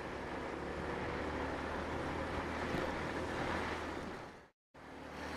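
Wind rush and road noise on the microphone of a moving Sinnis Shuttle scooter, with the scooter's engine droning low beneath. About four and a half seconds in, the sound briefly drops out and comes back.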